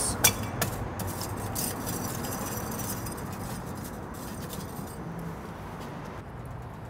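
Chunks of apple wood pushed down into hot lump charcoal: a quick run of sharp, glassy clinks as the charcoal pieces knock together in the first second or so, then a soft steady hiss.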